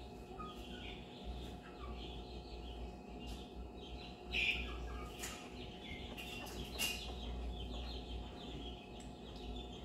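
Twelve-day-old basset hound puppies squeaking and whimpering in short high chirps, with a louder squeal about four and a half seconds in.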